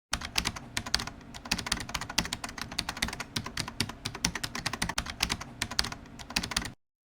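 Computer keyboard typing: rapid, irregular key clicks for about six and a half seconds, starting and stopping abruptly as an edited-in typing sound effect.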